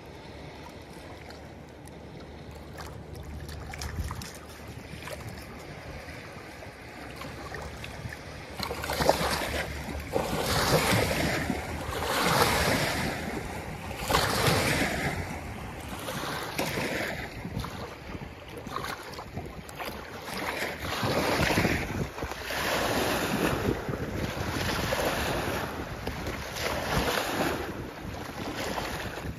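Wind buffeting the microphone and river waves washing against a grassy bank, fairly quiet at first and then loud, swelling and falling every second or two from about a third of the way in, with a dog splashing as it runs through the shallows.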